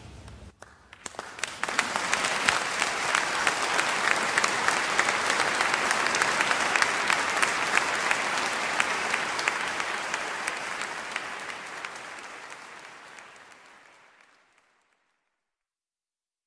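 Audience applauding. The applause starts about a second in, builds quickly, holds steady and fades out near the end.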